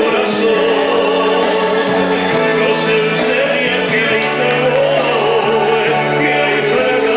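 Two male tenors singing a duet through microphones, holding long notes with a wavering vibrato over a musical accompaniment.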